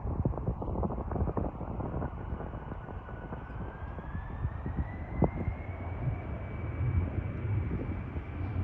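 Embraer E190's General Electric CF34 turbofan engines spooling up: a thin whine rises in pitch over a few seconds, then holds steady as takeoff thrust is set. It sits over a low rumble with scattered thumps.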